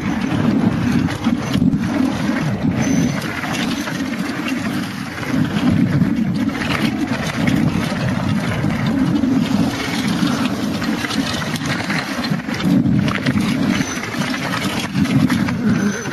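Wind buffeting the microphone of a camera riding on a mountain bike down a downhill trail, with knocks and rattles from the bike jolting over rough ground.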